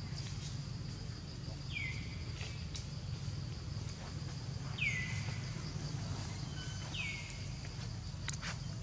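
Outdoor ambience: a steady high insect trill, with a bird repeating a short call that falls in pitch three times, over a steady low rumble. A sharp click sounds near the end.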